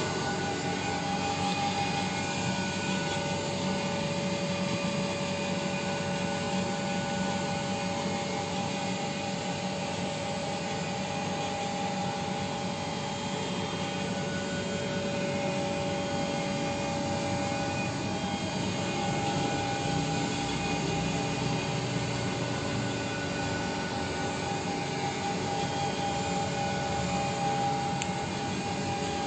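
A locomotive's machine-room equipment running: a steady mechanical whir with a steady high whine over it.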